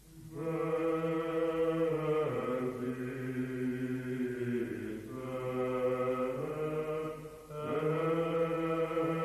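Slow chanted singing over a steady low drone, the melody moving in held steps, with short breaks between phrases about five and seven and a half seconds in.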